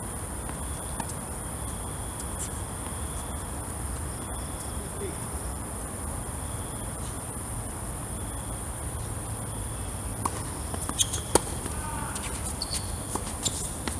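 Steady high-pitched chirring of night insects, unbroken throughout. In the last few seconds come several sharp knocks of a tennis ball being struck and bouncing.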